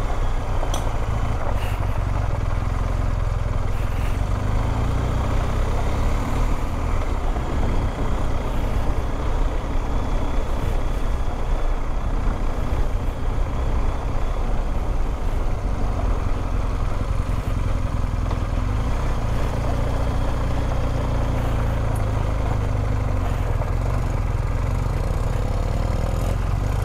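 BMW R1250GS boxer-twin engine running steadily while the motorcycle is ridden, heard from a handlebar-mounted microphone.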